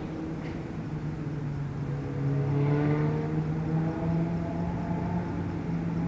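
Steady engine drone with a low hum. It swells about halfway through as its higher tones glide in pitch.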